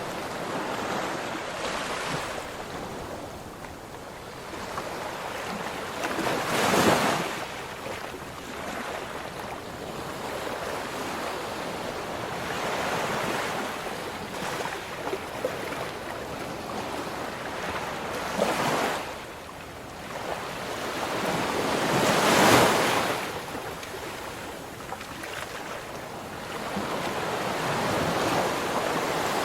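Ocean waves surging and breaking on a shore in a steady wash of surf, with the loudest breakers about 7 seconds in, around 18 seconds, and about 22 seconds in.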